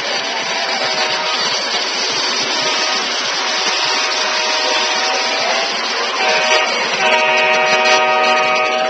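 Model freight train rolling past on three-rail O-gauge track with a steady rushing rumble, while the model locomotive's sound system blows a diesel horn in the grade-crossing pattern: long, long, short, long.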